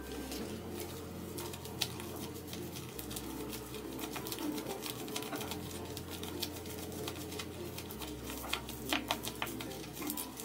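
Crinkling and crackling of paper squishies wrapped in packing tape and stuffed with plastic-bag filling as they are squeezed by hand. The crackles come in irregular bunches and grow denser near the end.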